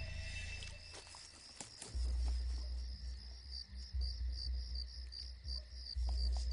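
Crickets chirping in a steady, evenly repeated pattern in night-time ambience, with a deep low rumble that comes in about two seconds in and swells and fades.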